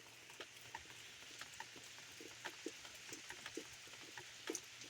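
Steady soaking rain falling, with irregular drips ticking and plinking on nearby surfaces.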